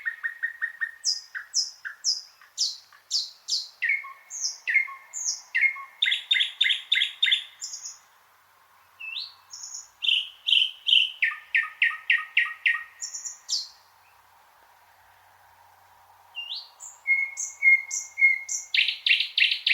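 Thrush nightingale singing: loud phrases of rapidly repeated notes, clicks and whistles, broken by two short pauses.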